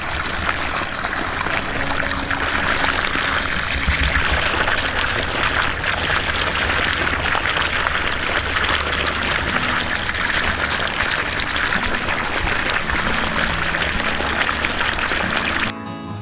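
Siphon water gushing steadily out of the open end of a blue PVC pipe and splashing onto wet ground, a continuous rushing pour from a siphon running at full flow. It cuts off suddenly just before the end.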